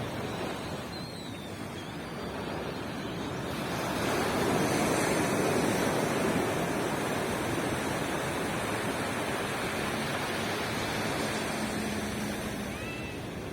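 Ocean surf washing on a beach, a wave swelling and breaking about four seconds in, then a steady wash that slowly eases.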